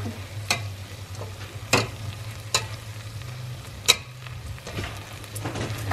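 Rice frying in a hot metal pot while it is stirred: a utensil scrapes through the grains and clicks against the pot about four times, over a low steady hum.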